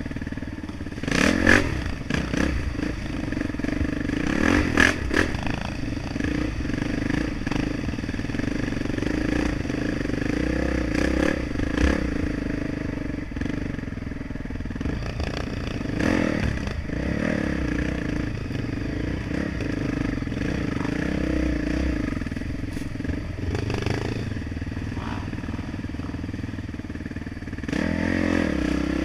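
Off-road dirt bike engine running close under the rider, blipped up in short bursts of revs every few seconds while crawling along a rutted, muddy trail, with clattering knocks from the bike over the rough ground.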